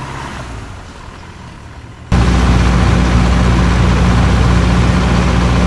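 A vehicle's engine and driving noise: a moderate engine hum that fades slightly. About two seconds in it gives way abruptly to a much louder, steady engine drone with a rushing hiss, which cuts off sharply near the end.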